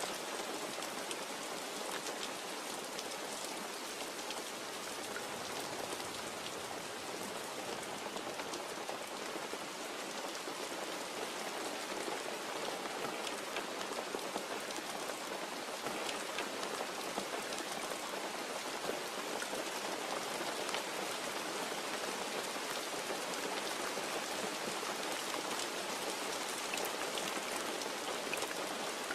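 Steady rain, with many fine drop ticks spattering on a surface.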